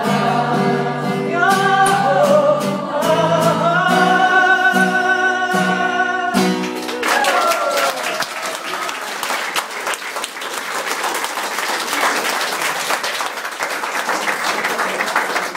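A woman sings the final held notes of a song to acoustic guitar, ending about six seconds in; the audience then breaks into applause that continues.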